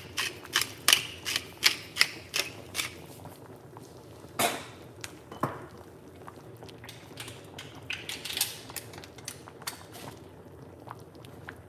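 Hand pepper mill grinding black pepper, a quick run of ratcheting clicks over the first few seconds, with a few more clicks later.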